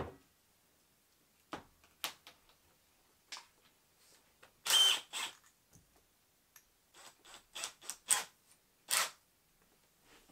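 Handling noises as a metal wire basket and a cordless drill are moved about: scattered light clicks and knocks, with a few short scraping rustles, the loudest about halfway through and another near the end.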